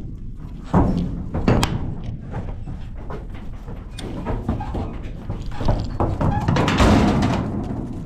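Thuds and knocks of cattle stepping and shifting in a stock trailer as they are unloaded, with a few sharp knocks early on and a louder stretch of clattering and scuffling near the end.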